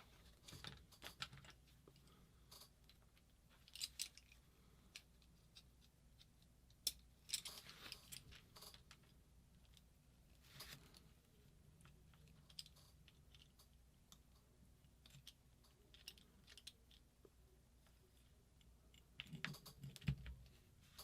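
Faint, scattered clicks and light taps of small metal parts of a WDP Angel LCD paintball marker being handled and turned in the hands, with a short cluster of rattly handling noises in the middle and again near the end.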